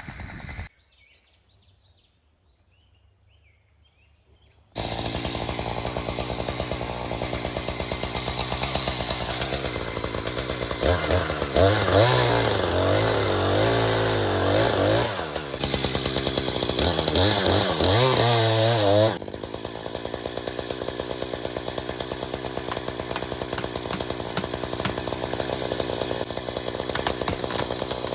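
A few seconds of near silence, then a chainsaw engine comes in and runs steadily. Twice it revs up louder, its pitch wavering and sagging as it works under load, typical of cutting through wood. It then drops back to a steady, lower running level.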